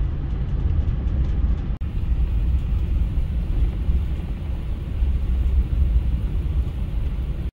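Steady low rumble of a vehicle driving on a dirt road, heard from inside the cab: engine and tyre noise.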